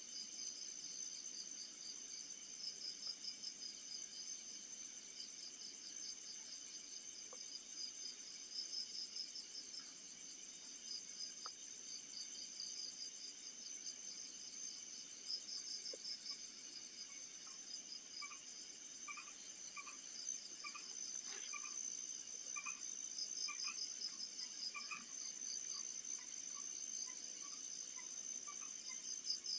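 Night insects, crickets among them, chirping as a steady high-pitched chorus with pulsing trills. From just past the middle, a run of short, lower chirps joins in.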